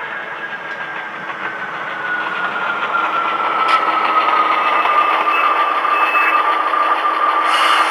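Model Pennsylvania RS1 diesel locomotive's sound decoder playing diesel engine sound through its onboard speaker as the loco runs. The sound grows louder about halfway through as it approaches, over a whine that slowly falls in pitch.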